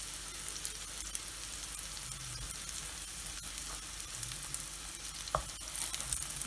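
Egg omelette frying in hot oil in a pan, a steady sizzling hiss dotted with small crackles, with one light knock about five seconds in.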